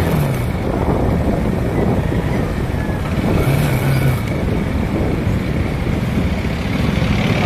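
Motorcycle engine running while riding through city traffic, under steady road and air rush, with the engine note briefly standing out about three and a half seconds in.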